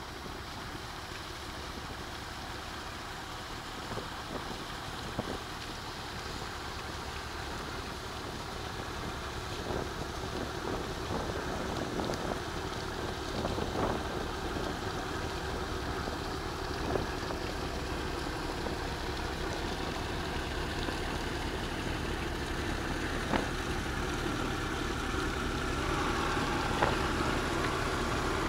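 Steady boat engine drone with wind and water noise, growing louder as an offshore crew boat passes close by. Choppy wake water splashes more loudly in the last few seconds, with a few short knocks.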